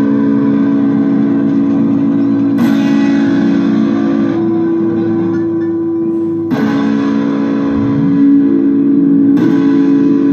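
Amplified electric guitar holding long, ringing drone notes, with fresh notes struck sharply three times a few seconds apart. A low pitch slides upward about eight seconds in.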